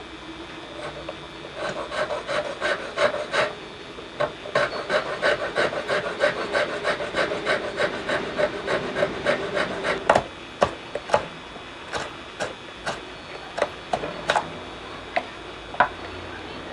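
A file scraping across a small wooden netsuke figure in quick repeated strokes, about three a second. In the second half the strokes come slower, as separate sharp scrapes.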